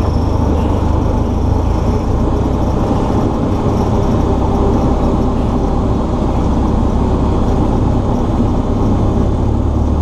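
Cessna 172S's four-cylinder Lycoming engine and propeller running steadily, heard inside the cabin as the plane rolls along the runway.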